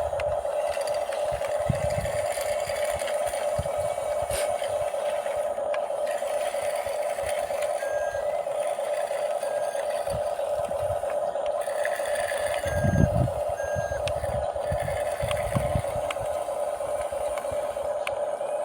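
Small RC bulldozer's electric drive motors whining steadily, with a few dull low thuds, the strongest about 13 seconds in.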